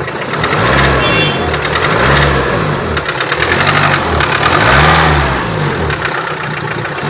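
Renault Duster engine being revved in several short throttle blips, each rising and falling in pitch. The engine runs excessively noisy, a noise the mechanic links to an injector programming fault code and sets out to cure by injector coding.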